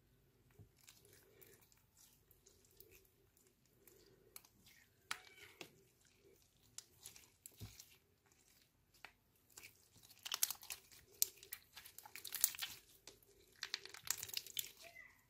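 Glossy clear slime mixed with lipstick being kneaded and squeezed by hand, giving sticky wet clicks and crackles. They come in short busy spells that grow louder and denser from about ten seconds in.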